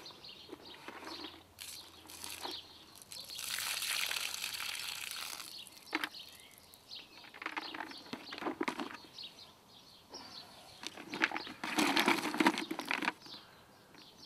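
Water pouring out of a plastic bucket of soaked hickory and manuka wood chips as it is drained, a steady pour lasting about two seconds. Near the end the wet chips rustle and knock against the bucket as it is shaken and handled.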